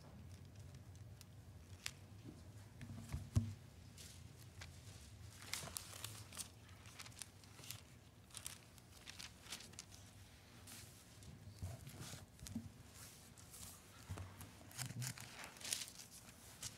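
Bible pages being leafed through and rustled, a scatter of short papery crackles, with a single thump about three and a half seconds in.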